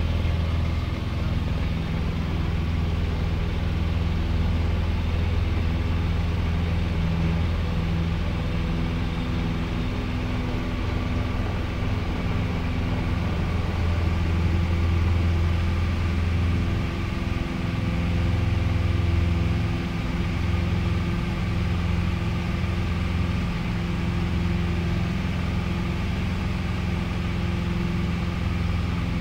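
Light aircraft's piston engine and propeller running steadily at takeoff power, heard from inside the cabin as a deep drone. The tone shifts slightly about two-thirds of the way through as the plane lifts off.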